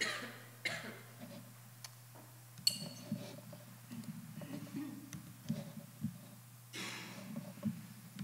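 Quiet room with a steady low electrical hum and scattered faint clicks and knocks from a laptop being worked. A short burst of noise comes about seven seconds in.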